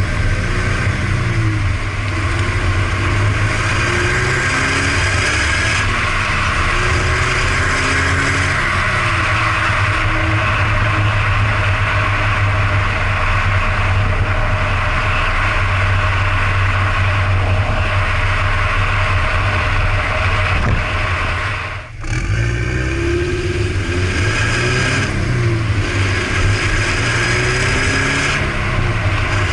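Subaru BRZ's flat-four engine breathing through a Blitz NUR-SPEC C-Ti titanium cat-back exhaust, revving up and falling back again and again. There is a short break about two-thirds of the way through, and then the revving picks up again.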